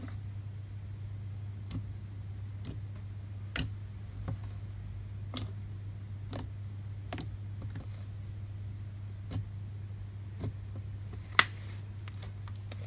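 Thick white cream cheese slime (glue, shaving foam and cornstarch) being kneaded and pressed by hand, giving sharp clicks and pops of trapped air at irregular intervals, roughly once a second, the loudest about a second and a half before the end. A steady low hum sits underneath.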